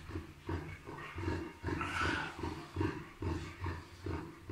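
Chow chow panting hard, with low, rough breaths coming about two to three times a second, and a brief rustle about two seconds in.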